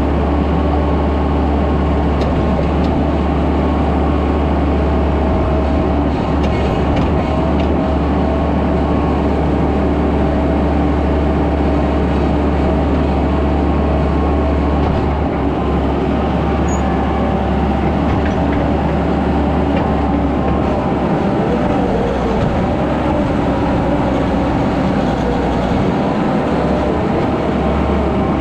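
Skid steer engine running steadily with a deep drone, with no let-up.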